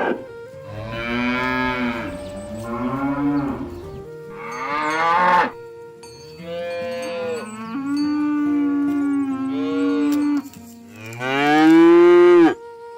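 Cattle mooing over and over, several calls overlapping. Each moo rises and falls in pitch; one long, steady moo comes midway, and the loudest comes near the end and cuts off sharply.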